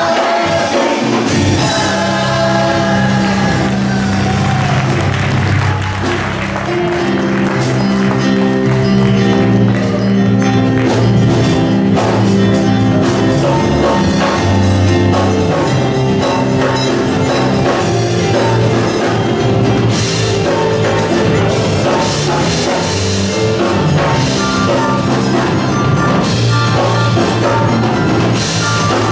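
Live gospel music: a church choir singing with a band that keeps a steady drum beat under sustained held chords.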